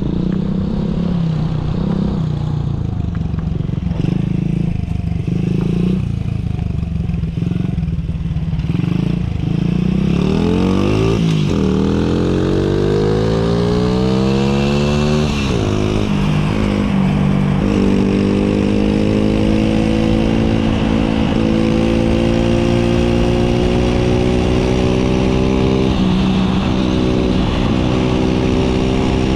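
Honda Monkey's small single-cylinder four-stroke, bored up to 75cc with a Kitaco kit and breathing through a Takegawa Z muffler, running at low revs for about ten seconds. It then revs up through the gears, climbing in pitch with breaks at each upshift, and settles into a steady cruise from about halfway on.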